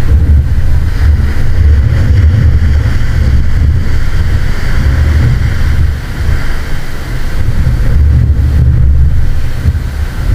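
Wind buffeting the microphone with a loud, uneven low rumble, over the hiss of ocean surf.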